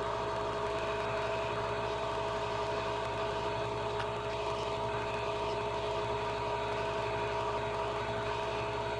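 Steady blower whir of soldering rework heating equipment, such as a board preheater and hot-air blower, heating a logic board to desolder its small components. A few constant whining tones sit over a low hum.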